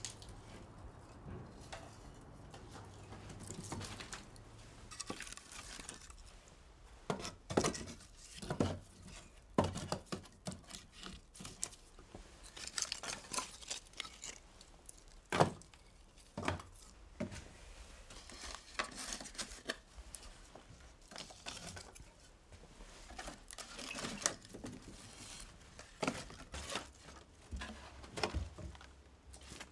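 Split firewood logs being handled and stacked on a woodpile: irregular wooden knocks and clunks, one every second or so, with scraping and rustling of wood against wood between them.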